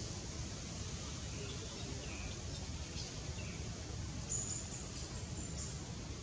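Outdoor forest ambience: steady background noise with faint, scattered bird chirps, and a brief sharper high chirp about four seconds in.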